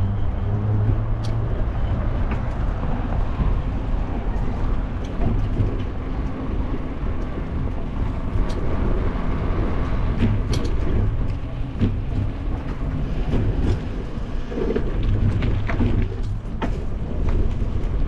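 Steady wind noise on the microphone of a bicycle-mounted camera as the bike rolls along, with scattered sharp clicks and rattles from the bike going over joints in the pavement.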